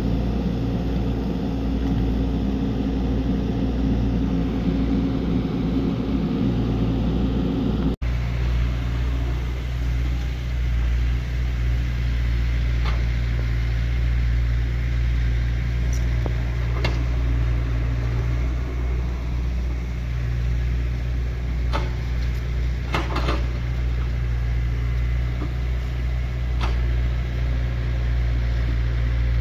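Excavator's diesel engine running steadily, with a few sharp knocks in the second half. The sound cuts out for an instant about eight seconds in.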